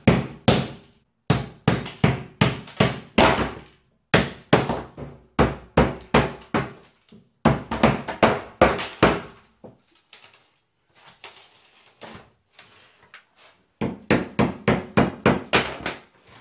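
Repeated sharp blows knocking out a saw-cut section of old plaster wall (gypsum lath, mortar and a gypsum skim coat), in quick runs of several knocks a second. About ten seconds in there is a quieter stretch of small crackles and clatter of broken plaster before the knocking starts again near the end.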